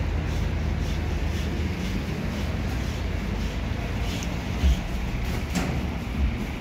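Busy high-street ambience: a steady rumble of road traffic, with a knock about four and a half seconds in and a sharp click about a second later.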